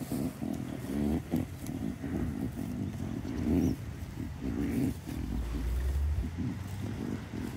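Beltex ewes grazing close by, tearing and chewing grass in short, irregular bursts. A deeper rumble comes in about five seconds in.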